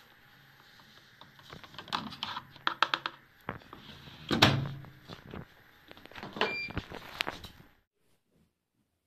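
The plastic detergent dispenser drawer of a Siemens front-loading washing machine being handled and pushed shut: a run of plastic clicks and rattles, a louder sliding knock, then more clunks. The sound cuts out about a second before the end.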